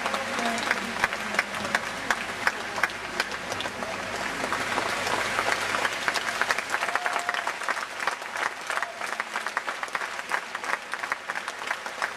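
Audience applauding, a dense patter of many hands with individual sharp claps standing out.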